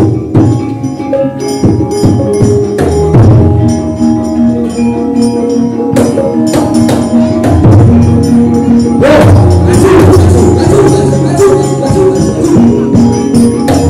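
Javanese gamelan ensemble playing: metallophones ring steady, overlapping tones over low drum beats, with sharp clicks throughout and a denser, busier passage from about nine seconds in.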